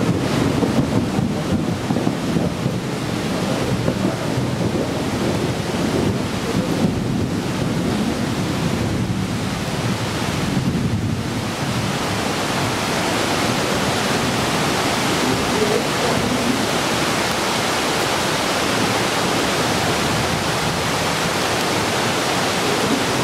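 Steady rushing noise of a heavy tropical thunderstorm's rain and wind, with wind buffeting the microphone and ocean surf mixed in.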